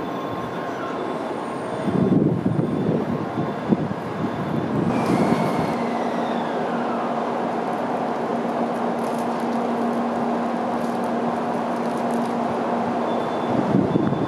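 Tokaido Shinkansen train pulling in on the adjacent platform track, with a steady rolling rumble. From about five seconds in, a falling whine as it slows, over a steady hum.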